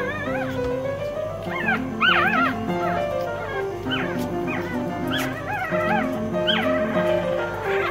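Newborn poodle puppies whimpering and squeaking: short, high squeals that rise and fall, coming every second or so, loudest about two seconds in. Background music plays underneath.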